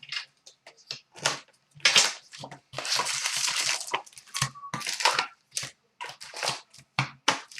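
Hockey card pack wrappers being torn open and crinkled, with cards shuffled by hand, in quick irregular crackles and one longer stretch of crinkling about three seconds in.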